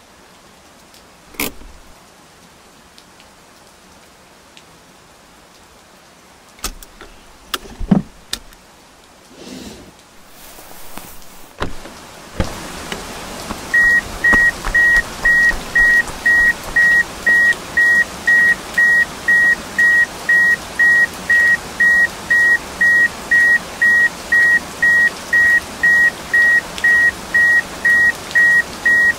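An electronic beeper sounding one high-pitched tone at an even pace of about two beeps a second, starting about fourteen seconds in over a steady hiss of ambience. Before it there are only a few scattered clicks and knocks.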